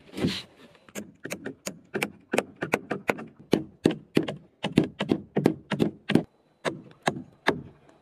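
Hammer driving a galvanized toothed nail plate into the wooden rafters at a ridge joint: a fast run of sharp blows, about four a second, with a short pause a little after six seconds.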